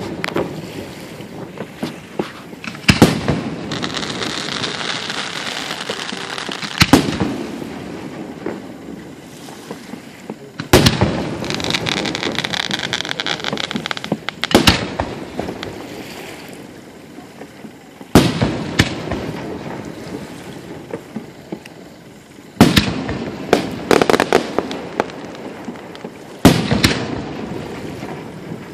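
Fireworks display: aerial shells bursting with about eight sharp bangs a few seconds apart. Several bangs are followed by a long crackle that fades out.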